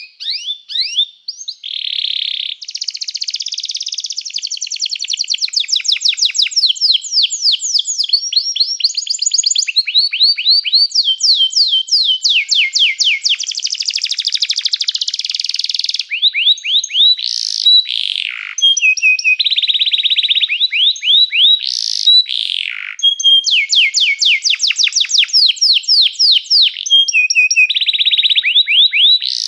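Domestic canary singing a continuous song of rapid trills and rolls, switching from one repeated phrase to the next every second or two, with a few sharp falling whistles.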